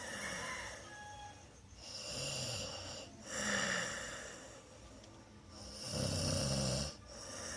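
Snoring in sleep: a snore with each breath, repeating about every three seconds, with breathy hiss between snores. The loudest snore comes about six seconds in.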